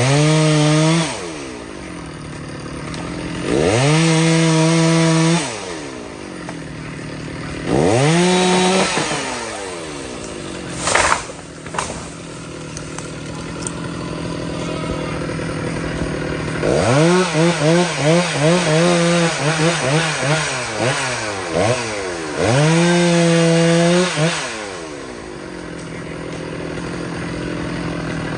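Chainsaw revved to full throttle in repeated bursts of a second or two, dropping back to a lower idle between them. Around the middle it gives a run of quick throttle blips.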